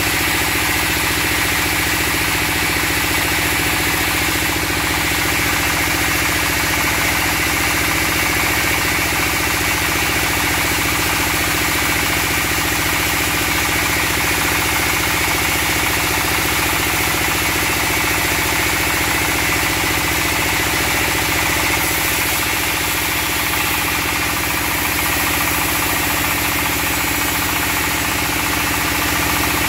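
Stationary engine driving a band sawmill, running steadily at a constant speed with a fast, even low pulse.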